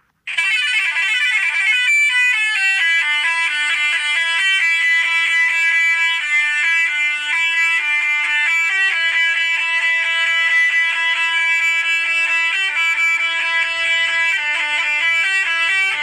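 Indian truck's electronic musical horn playing a tune. It opens with a wavering sweep for about two seconds, then plays a quick run of stepped notes.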